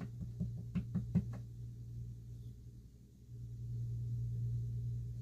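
Tarot cards being handled, giving a few light clicks and taps in the first second and a half. After that a steady low hum, which grows a little louder about three seconds in.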